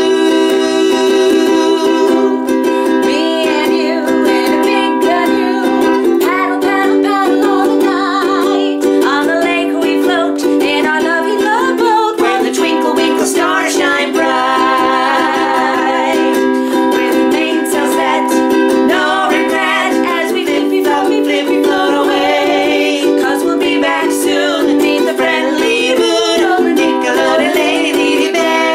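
Ukulele played steadily with a voice singing over it, a cheerful song in a small room.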